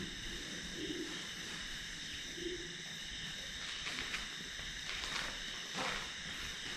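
Night insects chirring steadily, with a few faint footsteps on a debris-strewn concrete floor in the second half.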